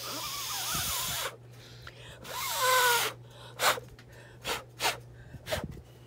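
A person blowing hard onto wet watercolour paint to push it across the paper: two long breaths, the second with a faint whistle, then several short puffs.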